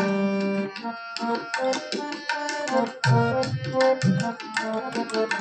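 Instrumental interlude of Sikh kirtan: a harmonium sustaining the melody while tabla plays a quick, busy rhythm.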